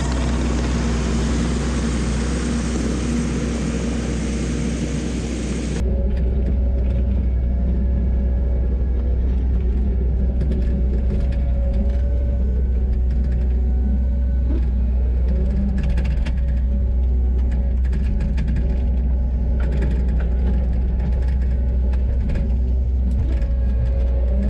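Kubota 90-2 skid steer's diesel engine running steadily under work. About six seconds in the sound changes abruptly from a broad hiss to a lower, steadier engine hum.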